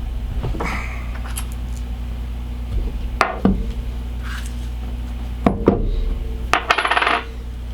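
Coilover top-hat parts and bushings being handled and fitted by hand: a few sharp metal clinks and knocks about three seconds in and again past the middle, and a short rattle near the end, over a steady low hum.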